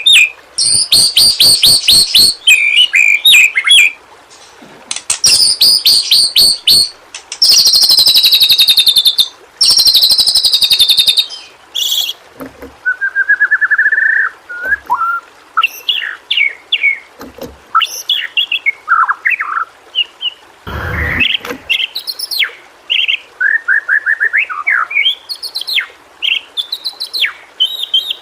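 White-rumped shama (murai batu) singing: a fast, rattling chatter of high notes for the first dozen seconds, then clear whistled phrases with short trills and glides, broken by one harsh buzzy note about two-thirds of the way through.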